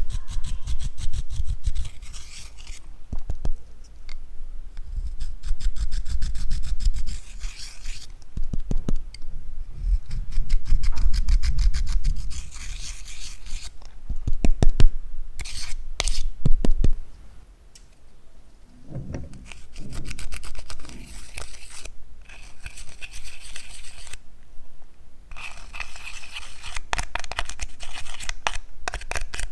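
Metal-tipped tool scraping pressed eyeshadow and glitter out of palette pans: close, rapid scratching in bouts of quick strokes, with short pauses between bouts.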